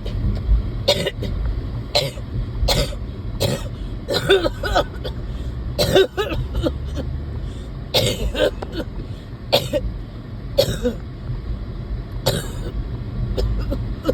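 A person coughing over and over, about a dozen short coughs roughly a second apart, some in quick pairs, over a steady low rumble.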